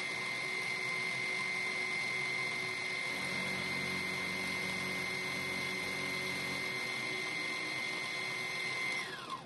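Small milling machine running with a steady high-pitched whine while an end mill machines a brass lathe cross-slide nut. Just before the end the whine slides down in pitch as the spindle is switched off and spins down.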